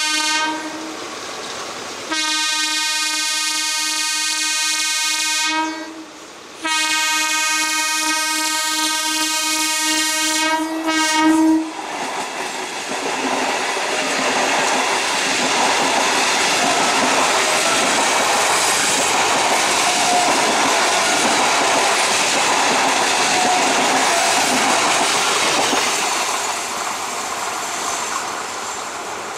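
ICF Medha electric multiple-unit local train sounding its single-tone horn: a short toot, then two long blasts of about three and five seconds. The train then passes close by, with steady wheel and rail noise and clickety-clack over the rail joints.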